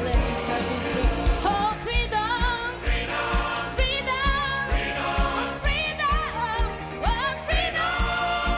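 Live gospel choir performance: a female lead singer sings with vibrato over a mixed choir, backed by a band with a steady drum beat of about two beats a second.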